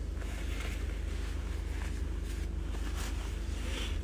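Steady low hum inside a car cabin, with faint rustling of clothing as the person shifts in the seat.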